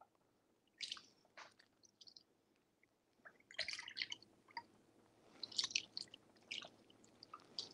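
Faint, short splashes and squelches of tamari sauce being poured from a bottle into a small measuring cup and over raw game hens in a bowl, in several brief bursts.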